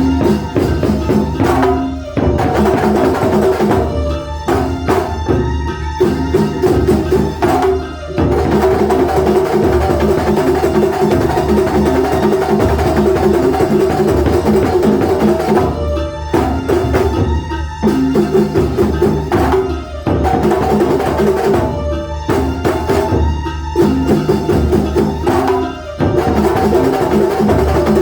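Live Banyuwangi kuntulan music: a percussion ensemble of drums playing a dense rhythm under a steady melodic line, with brief breaks every few seconds.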